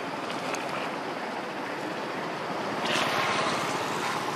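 Steady rushing background noise, with a brief louder burst of noise about three seconds in.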